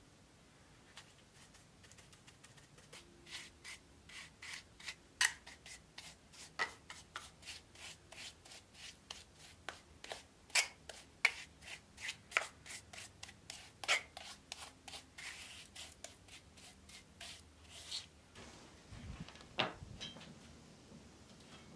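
A trowel scraping and spreading wet mortar over the carved top of a stone block, in short strokes about two or three a second with sharper ticks among them. A single dull knock comes near the end.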